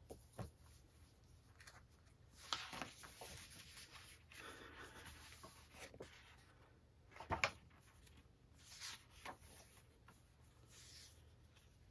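Pages of a large paper booklet being turned and handled: faint, brief rustles of paper at intervals, the sharpest about seven seconds in.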